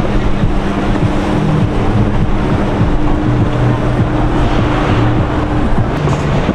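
Motorboat engines running steadily with a low drone, under water and wind noise on the microphone.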